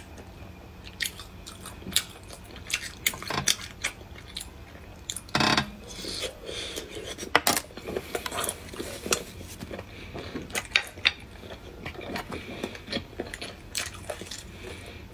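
Close-miked eating sounds of a person chewing cooked whelk meat, with many sharp clicks scattered throughout and a louder click about halfway.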